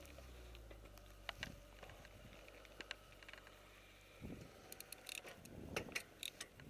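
A Fuji Thrill mountain bike setting off: scattered sharp clicks and ticks from the bike, coming thick and fast in the last two seconds, over a faint low hum that fades out about four seconds in.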